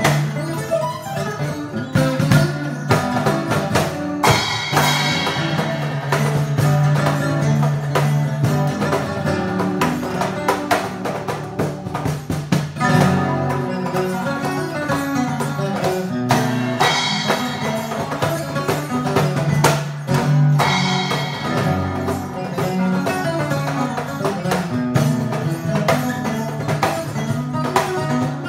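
Acoustic guitar played fingerstyle over a steady beat of hand-struck cajon.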